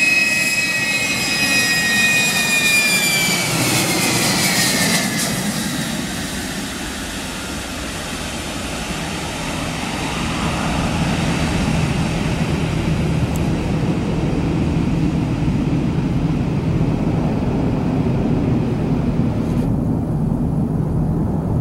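Four-engine Ilyushin Il-76 jet transport passing low overhead on landing. Its high engine whine falls in pitch as it goes by, then a broad low jet rumble swells as the engines spool up for reverse thrust during the rollout.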